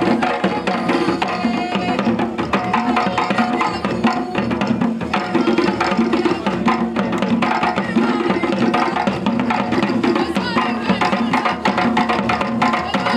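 Live traditional dance drumming: hand drums struck in a fast, steady rhythm, with voices singing over it.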